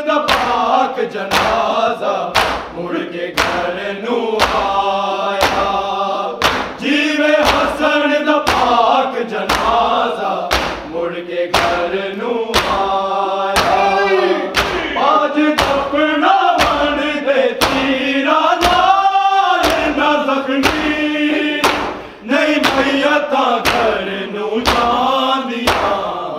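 Voices chanting a noha, a Shia lament, together to a steady beat of sharp strikes, the chest-beating (matam) that keeps time in noha recitation.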